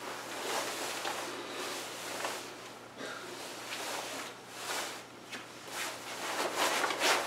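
Soft, on-and-off rustling of a heavy winter jacket's fabric being swept aside and pinned back, a little louder near the end.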